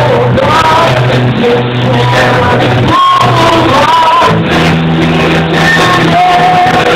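Live rock band playing loudly: drums, electric guitar and bass, with a singing voice over them.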